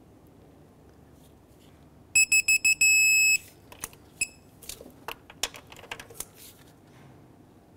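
Digital angle-reading torque wrench beeping: five quick short beeps, then one longer steady beep as the bolt reaches the set angle. One more short beep follows, then a few light clicks from the wrench.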